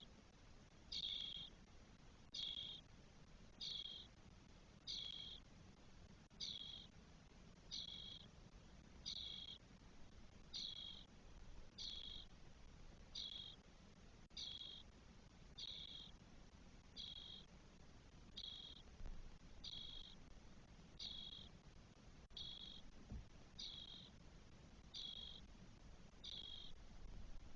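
Spotless starling nestlings giving a short, high begging call over and over, faint and evenly spaced about once every second and a quarter.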